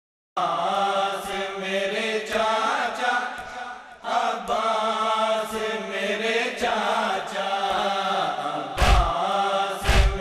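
Men chanting a noha lament in unison, with chest-beating (matam) strikes thudding about once a second. The chanting starts abruptly, and the strikes grow heavier near the end.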